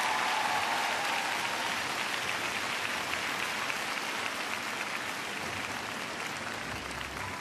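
Large arena audience applauding after a figure skating performance, a dense steady clapping that slowly dies down.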